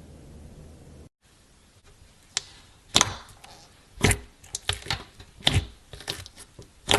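A steady low hum that cuts off abruptly about a second in, then a series of sharp hits, roughly one a second and irregularly spaced.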